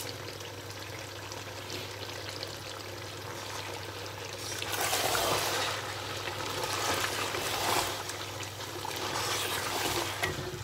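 Chicken masala sizzling as it fries dry in its own oil in an aluminium pot, its water cooked off. From about halfway, a wooden spoon stirs it, bringing louder stretches of sizzling and scraping.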